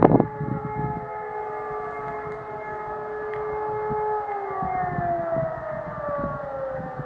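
Distant civil-defence siren sounding a steady multi-tone note, whose pitch slides down from about four seconds in. A loud thump comes at the very start.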